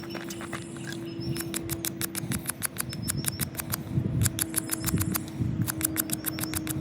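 Wooden hand-drill spindle squeaking and chattering in the fireboard notch as it is spun back and forth between the palms, in two rapid runs of sharp squeaks over the rub of the hands. A faint steady hum sits underneath.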